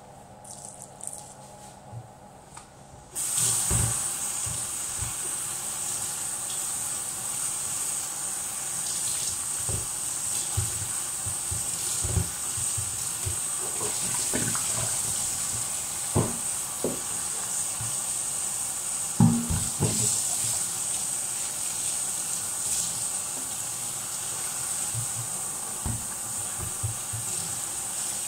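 Kitchen sink tap turned on about three seconds in, then running steadily while dishes are rinsed under it, with occasional knocks and clinks of dishware being handled.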